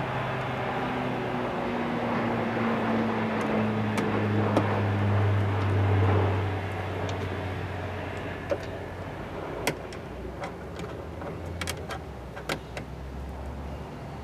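A low hum, louder for the first six seconds and then fading, with scattered sharp metallic clicks and taps from about eight seconds on, as hand tools work the door speaker's 7 mm screws.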